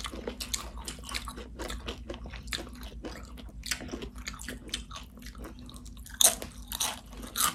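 Tortilla chips loaded with cheese and toppings being bitten and chewed close to the microphone: dense, irregular crunching and crackling, with two louder bites near the end.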